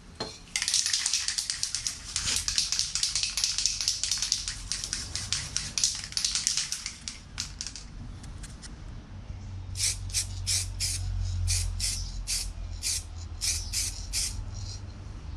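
Aerosol can of touch-up spray paint spraying: one long hiss of about seven seconds, then a string of short bursts about two a second.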